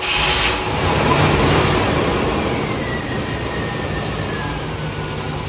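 Classic Chevy pickup's engine starting and settling into a fast idle, with a thin whine that falls slowly in pitch as the revs come down.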